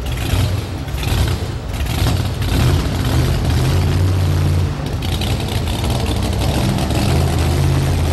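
Supercharged engine of a two-wheel-drive pulling truck idling with a lumpy lope, like a heartbeat, as the truck rolls slowly; the low beat swells and ebbs a few times.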